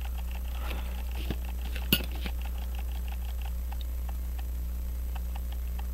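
Light metallic clicks and clinks of a watchmaker's screwdriver and tweezers against the brass movement of a verge fusee pocket watch as its small screws and parts are worked loose, with one sharper click about two seconds in.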